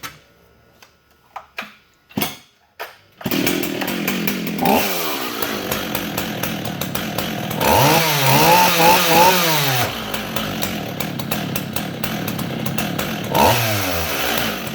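Stihl 044 Magnum two-stroke chainsaw starting about three seconds in after a few knocks, then running. It is blipped briefly about a second later and again near the end, and held at a high, wavering rev for about two seconds in the middle before dropping back to idle.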